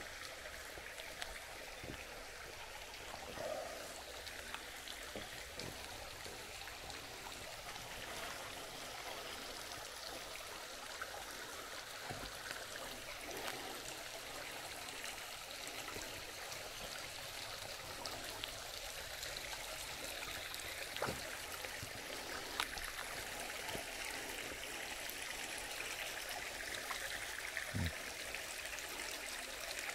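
Creek water running over rocks, a steady babble that grows slightly louder through the second half, with a few short knocks along the way.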